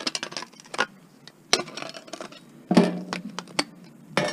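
Scattered clicks and clacks of metal and plastic computer parts being handled and taken apart, with several sharp knocks; the loudest comes a little under three seconds in.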